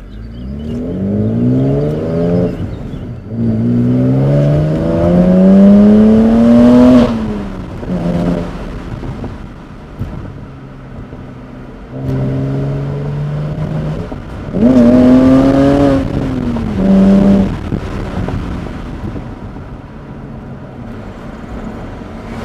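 BMW 330i's N52 3.0-litre straight-six with a BMW Performance rear silencer, heard from inside the cabin, revving up hard through the gears: several rising pulls, each cut by a brief drop in pitch at a manual gear change, with a steadier stretch in the middle before another pull.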